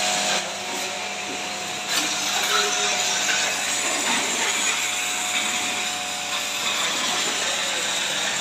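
Pressure washer spraying a jet of water onto a car's foamed body panels: a steady hiss of spray over a steady machine hum.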